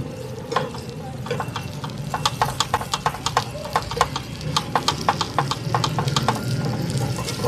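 Metal tongs clicking and tapping against a nonstick frying pan as banana fritters are turned, several sharp clicks a second, over the low sizzle of the fritters frying.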